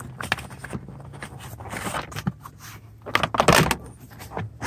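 Plastic and metal clicks and rattles from a car seat's trim and seat rail being handled, with a dense cluster of knocks about three seconds in.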